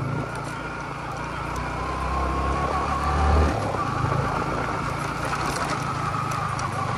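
Motorcycle engine running while riding on a rough off-road track, with scattered small rattling clicks. A deep rumble swells for a couple of seconds and cuts off about halfway through.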